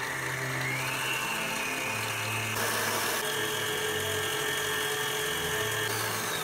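Small electric kitchen appliance motor running at high speed, a steady whirring whine. Its pitch steps up about a second in and shifts again midway, then begins to fall as the motor winds down near the end.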